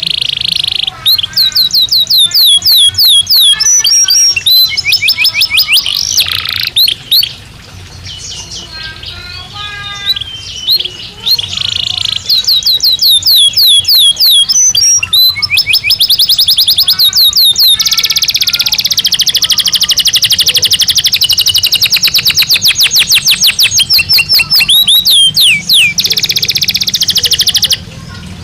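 Belgian canary singing a long, loud song of rapid trills, strings of quickly repeated high notes, some sweeping up or down. A long, very fast trill runs through the second half and breaks off shortly before the end.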